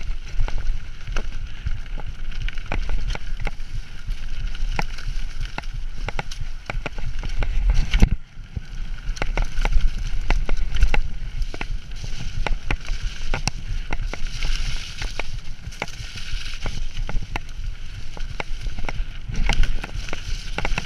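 Mountain bike ridden along a muddy dirt trail: a steady low rumble from the tyres on the ground with many rattles and knocks from the bike. The noise drops briefly about eight seconds in.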